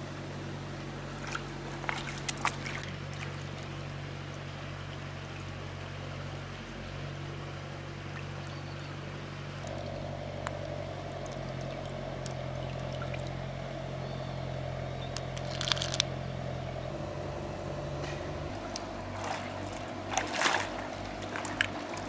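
A steady low motor drone that shifts pitch slightly a few times, with a few brief water splashes and clicks: a couple a few seconds in, and more near the end as hands move in the shallow water.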